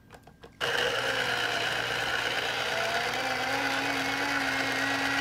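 Elite electric citrus juicer starting up about half a second in and running with a steady motor whir as an orange half is pressed onto its spinning reamer. Its pitch rises slightly about three seconds in.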